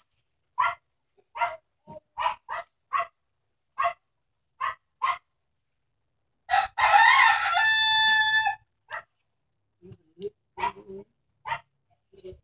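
A rooster crows once, about six and a half seconds in: a two-second crow that ends on a held note. Short, clipped calls repeat every half second or so before and after it.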